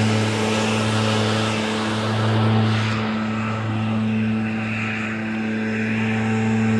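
A motor vehicle's engine running close by with a steady low hum. The broader road noise dies down about three seconds in as the vehicle moves off.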